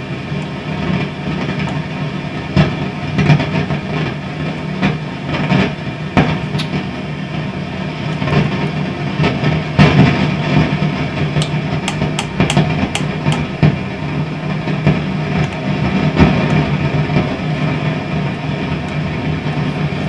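Fender Vibro King valve amplifier at full volume, putting out a loud, steady roaring racket with a strong hum, broken by sharp clicks and crackles as the tag board is flexed. It is the amp's noise fault, which the repairer suspects is a dry joint on the tag board.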